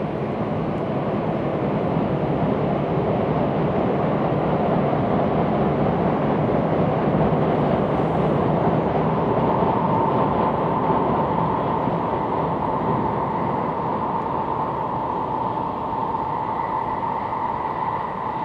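N700 series Shinkansen running at speed across a viaduct: a steady rushing roar that swells through the middle and eases off. A steady whine joins it about halfway through.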